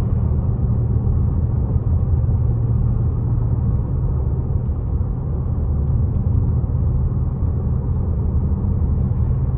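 A car driving along: steady low rumble of engine and road noise.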